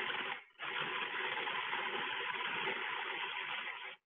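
Food processor running, chopping tomatoes, bread and toasted almonds into romesco sauce. It cuts out briefly about half a second in and again at the end.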